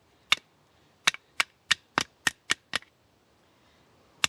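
Wooden baton knocking on the blade of a Swiss Army Hiker folding knife, driving it through a short, hard maple stick: one knock, then a quick run of seven sharp knocks at about three a second, and one more near the end.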